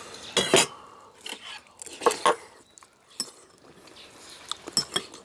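Close-miked eating: chewing and mouth sounds, with scattered sharp clicks of spoons against stainless steel bowls.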